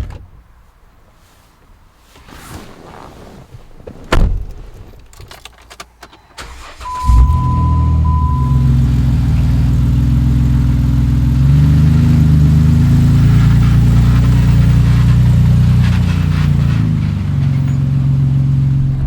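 A truck engine is started about seven seconds in, with a short beep as it fires, and then runs steadily. Before that it is quiet apart from one sharp knock about four seconds in.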